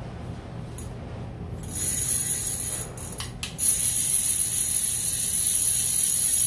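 A big-game conventional fishing reel's clicker buzzing fast and high as the spool turns. It comes in two runs: a short one about two seconds in, and a longer, louder one starting a little past three and a half seconds.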